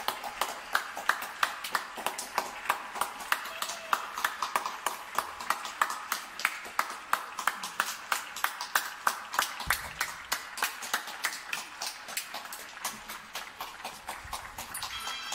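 A man clapping his hands in a steady rhythm, about three claps a second, easing off near the end.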